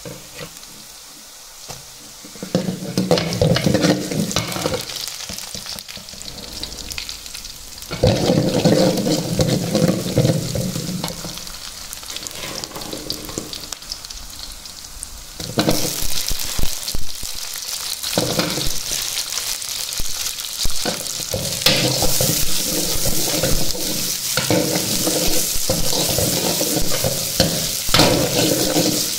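Oil sizzling in a kadai as whole spices fry, with a steel ladle stirring through it at intervals. The sizzle grows louder about halfway through, when chopped onions and green capsicum are frying in the oil.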